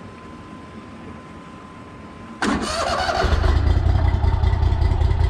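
A boat's outboard motor starts suddenly about halfway through, then runs with a steady low rumble.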